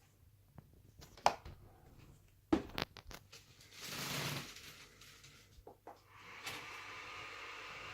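Sharp clicks and knocks of the Alienware laptop being handled and its battery snapped into place, with a short rustle about halfway. Near the end a steady whir with faint high tones starts and runs for a few seconds.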